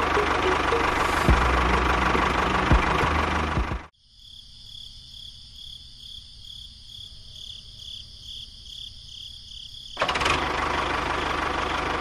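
Tractor engine running, cut off suddenly about four seconds in. A quieter stretch with a faint pulsing high chirring follows for about six seconds, then the engine sound comes back.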